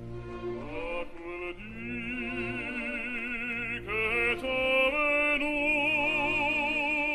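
Operatic singing as background music: one voice holding long notes with wide vibrato. It slides up into a higher note just under a second in and again about four seconds in, over a steady low accompaniment.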